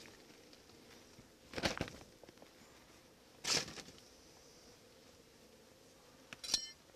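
Faint steady hum of a strong honeybee colony in an open hive, broken by three short rustling noises about two seconds apart.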